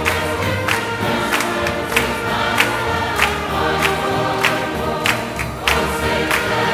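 Gospel choir and congregation singing a hymn together with instruments, over a steady beat of about three strikes every two seconds.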